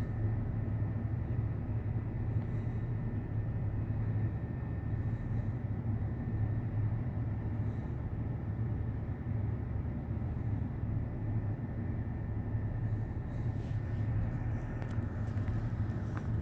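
Steady low rumble of an approaching diesel freight train, its locomotives still some distance off.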